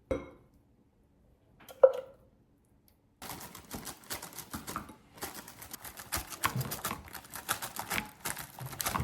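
Two short knocks, then from about three seconds in a fast, irregular clicking and clattering of kitchen work with utensils and dishes.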